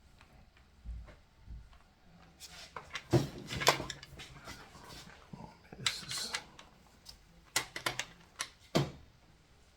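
Metal hand tools clicking and clinking on an engine block as bearing cap bolts are tightened with a socket wrench and torque wrench. The short sharp clicks come scattered, bunched about three seconds in and again from about six seconds on.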